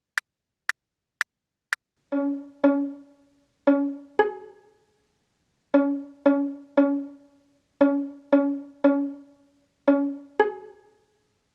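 Four count-off clicks, then a beginner's pizzicato string exercise played alone without backing: plucked notes that die away quickly, mostly repeating one pitch with a few others mixed in.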